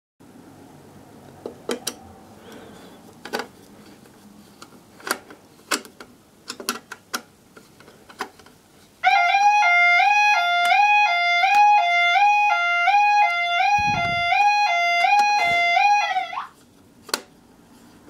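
Clicks and knocks of a screwdriver working the cover of a break-glass fire call point. About nine seconds in, a C&S Yodalarm YO5 fire alarm sounder starts suddenly and loudly, alternating between two tones, and cuts off abruptly about seven seconds later, set off by releasing the call point's cover because the call point is wired to bypass its test switch.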